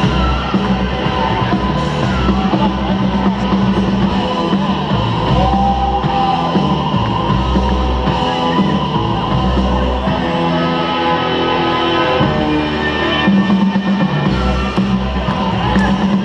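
Loud battle music with guitar and heavy bass, played over a hall's sound system.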